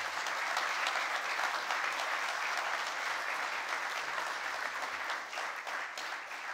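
Congregation applauding: many people clapping steadily together.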